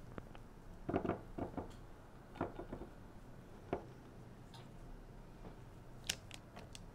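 A spatula stirring melted butter in a glass measuring cup, tapping and scraping against the glass in short bunches of light clicks, with a few sharper clicks near the end.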